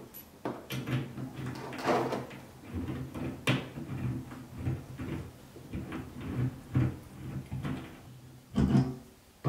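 Irregular small clicks and knocks of metal fittings being handled: a braided flexible water hose's nut being screwed onto a chrome angle stop valve under a washbasin.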